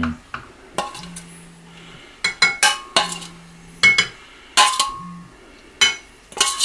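A metal spoon clinking and scraping against a stainless steel mixing bowl as red seasoning sauce is scooped out over a pan of tofu and vegetables. There are about ten sharp, ringing clinks at uneven intervals.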